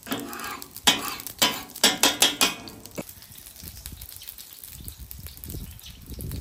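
A metal spatula scrapes and clacks against a flat-top griddle about six times in the first two and a half seconds, over a breaded pork cutlet shallow-frying in oil. After that only the quieter sizzle of the frying oil remains.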